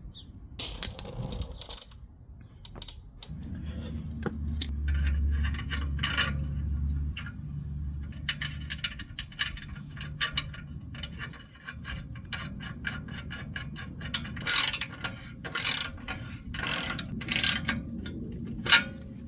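Hand ratchet clicking in short runs and metal tools clinking while the screws of a new slip-on motorcycle exhaust are tightened. A low steady hum sits underneath from about three seconds in.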